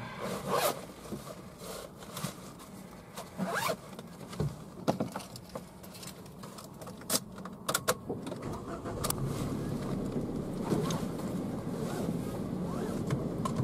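Scattered small clicks, knocks and rustles of things being handled inside a parked car. From about nine seconds in, a steady low hum of the car running at idle grows under them.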